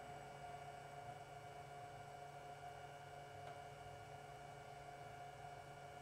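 Propane heater burner running with a faint, steady hum, the flame still patchy across the perforated burner panel shortly after a cold start.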